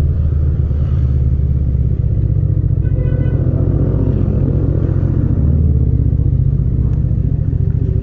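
Yamaha MT-07's 689 cc parallel-twin engine running steadily in second gear at low speed as the bike slows in traffic.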